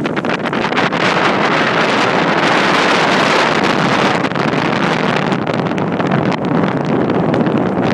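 Strong blizzard wind buffeting the microphone: a loud, continuous rush of noise that swells a couple of seconds in and eases slightly later.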